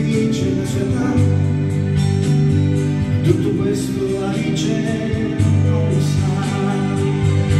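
Electronic keyboard playing the instrumental passage between verses of a song: chords over a steady bass line.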